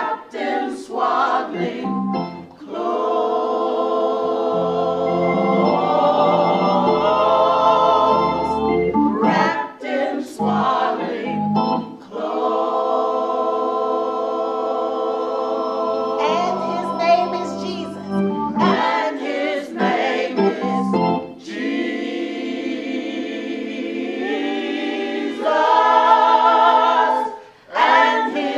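Gospel choir singing a Christmas song in rehearsal, with organ accompaniment, holding long chords in phrases broken by short pauses.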